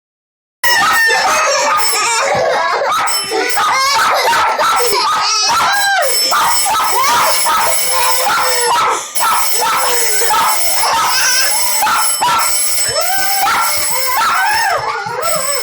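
A dog howling and whining without a break, its pitch sliding up and down, with a short dip about nine seconds in: the frightened reaction of a dog scared of the doorbell.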